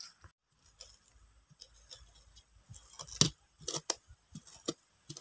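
Wooden pestle pounding chili peppers in a coconut-shell bowl: a string of irregular wooden knocks, faint at first and louder and quicker from about three seconds in.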